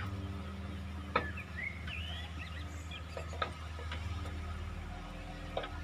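Excavator diesel engine running steadily, with a few sharp knocks and short bird chirps over it.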